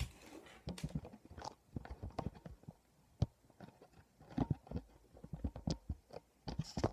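Irregular soft clicks, taps and rustles of a phone being handled close to its microphone.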